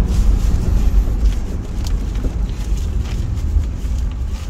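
Car driving slowly, heard from inside the cabin: a steady low engine and road rumble with a few faint clicks.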